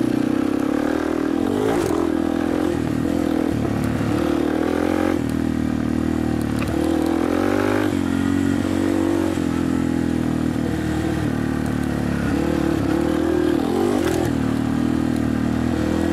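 Dirt bike engine running under way, revs climbing and dropping back several times as the throttle is worked over the terrain.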